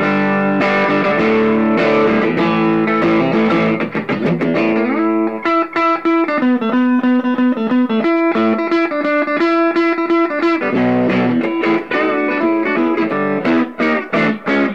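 Electric guitar, a Strat-style body with a Telecaster-type bridge pickup, played through an amp's clean channel pushed a little: ringing strummed chords, then a picked single-note run from about five seconds in, then short choppy chords near the end.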